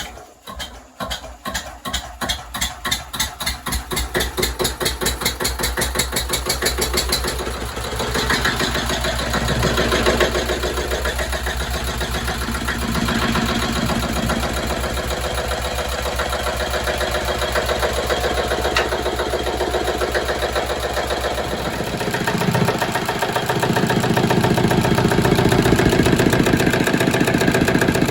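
Freshly rebuilt Southern Cross BDC diesel engine being started: its beats come quicker and quicker over the first several seconds until it catches, then it runs steadily.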